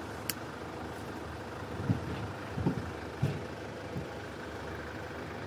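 Van engine idling steadily, heard from inside the cabin, with a light click shortly after the start and a few soft knocks in the middle.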